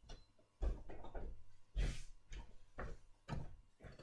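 Footsteps walking across a room: a run of dull thuds roughly half a second apart, the loudest about two seconds in.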